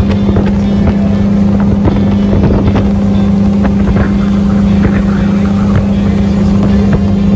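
A Yamaha jet-drive sport boat running under way, a steady loud engine drone over rushing water, with wind buffeting the microphone.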